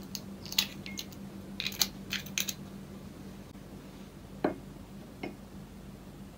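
Eggshell cracking as an egg is pulled apart by hand over a ceramic bowl: a series of small sharp clicks in the first couple of seconds. Then two knocks of a wooden spoon against the bowl as the yolk is scooped up, over a faint steady hum.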